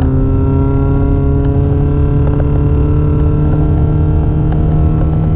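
Mercedes-Benz C180 W202's four-cylinder petrol engine accelerating on a rally stage, its note rising slowly and steadily, heard from inside the cabin. A few faint ticks sound over it.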